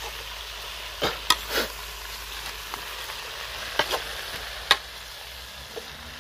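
A metal spoon stirring leafy greens in a blackened metal cooking pot over a wood fire, clinking sharply against the pot about six times in two clusters, over a steady hiss of the greens cooking in the hot pot.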